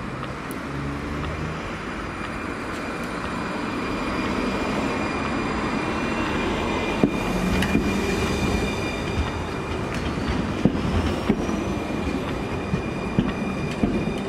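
RandstadRail light-rail tram (Alstom RegioCitadis) moving past, with a steady high whine over the rumble of its wheels on the rails, getting louder from about four seconds in. From about halfway, a run of sharp clacks from the wheels on the track.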